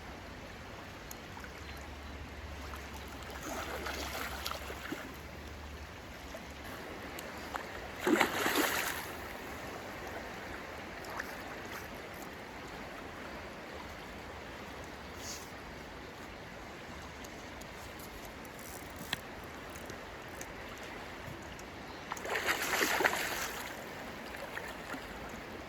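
River water flowing steadily, with two short splashes in the water, about a third of the way in and again near the end.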